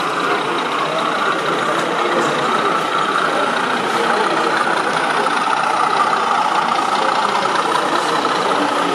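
Steady diesel engine sound from a model BR Class 31 diesel locomotive hauling a train of tank wagons, over a continuous background hum.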